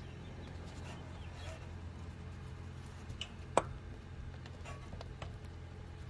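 A Toyota Tacoma front CV axle being rocked by hand in the 8-inch clamshell front differential: a few light clicks and one sharp knock about three and a half seconds in, from the play of a worn axle needle bearing. A steady low hum runs underneath.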